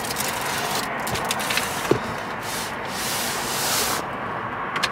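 A bundle of wooden slats rubbing and scraping against cardboard as it is pushed into a box, with scattered small clicks and knocks. A sharp knock comes about two seconds in, and a louder stretch of rubbing between about three and four seconds.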